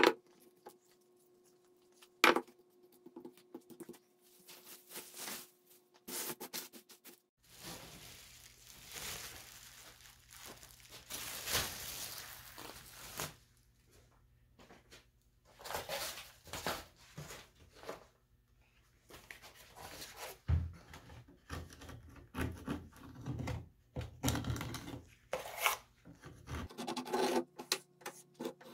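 Chemical paint stripper being worked over a varnished wooden panel and the softened finish scraped off with a putty knife: irregular scraping and rubbing strokes, with a couple of sharp clicks in the first few seconds and a steady low hum under the middle stretch.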